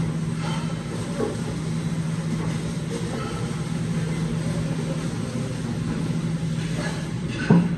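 Steady low mechanical hum of commercial kitchen machinery, with the crinkle of a plastic bag of spinach being handled and a sudden sharp knock near the end.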